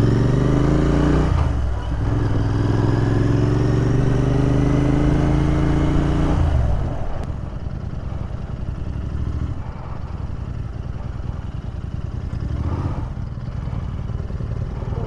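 Royal Enfield Interceptor 650's parallel-twin engine accelerating through the gears: the engine note rises, dips briefly at a gear change about a second and a half in, and rises again. At about seven seconds the throttle closes and it settles to a lower, steadier rumble at low speed.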